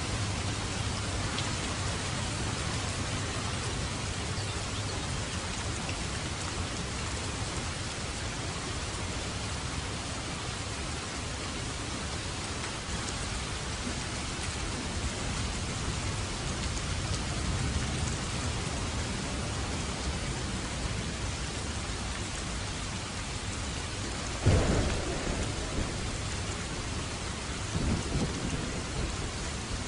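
Steady rain falling, with a sudden crack and low rumble of thunder about three-quarters of the way through and another, softer rumble near the end.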